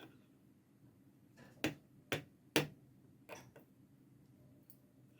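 Light, sharp clicks of small tools being handled on the controller board during soldering. Three louder clicks come about half a second apart starting about a second and a half in, followed by two fainter taps.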